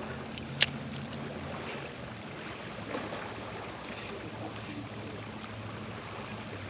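A Pflueger President 25 spinning reel on a first cast: a single sharp click about half a second in as the bail closes, then a steady low hum as the line is reeled in.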